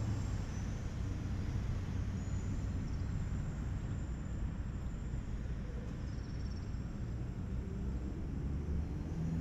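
Steady low rumble of city traffic, with a few faint high chirps over it.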